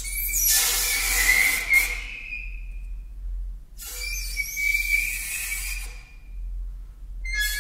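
Alto saxophone played with extended technique: breathy air tones, a hiss of air carrying a high, wavering whistling pitch, in three phrases with short silences between.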